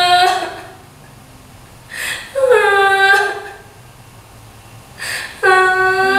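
A woman's voice crying out in anguish three times, each long, held wail opening with a short downward slide and preceded by a sharp gasping breath.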